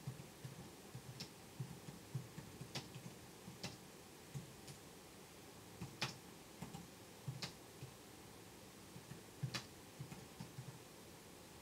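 Faint, irregular keystrokes on a computer keyboard as a sentence is typed: a few taps a second, with short pauses between bursts.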